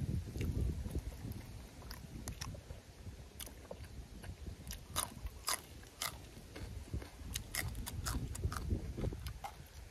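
A person biting and chewing crisp raw green vegetable dipped in chilli sauce: a run of sharp, wet crunches, thickest from about five seconds in.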